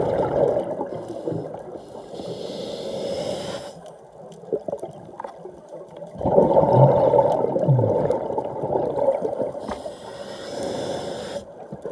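A diver breathing underwater: two hissing inhales, one about two seconds in and one near the end, and between them a long bubbling rush of exhaled air.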